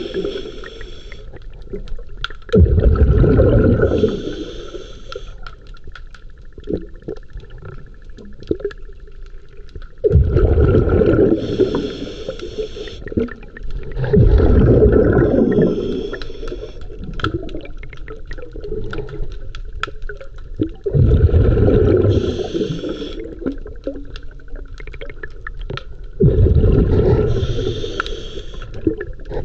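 Scuba diver's breathing heard underwater: loud bubbling bursts of exhaled air every few seconds, with quieter water noise between breaths.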